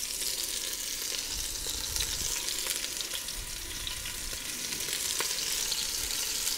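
Beef pieces searing hard in hot clarified butter in a cast-iron Dutch oven: a steady sizzling hiss with small crackles and spits.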